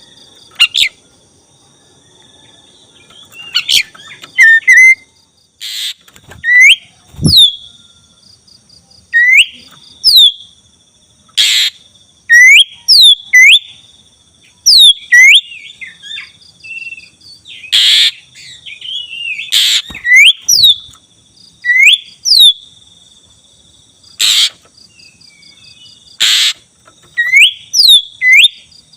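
Black-breasted oriental magpie-robin (kacer dada hitam) singing in a lively series of rising whistled notes broken by short, harsh scratchy calls, over a steady high-pitched hum.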